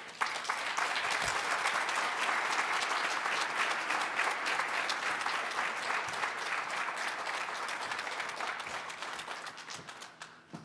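Audience applauding, starting at once, holding steady, then dying away over the last couple of seconds.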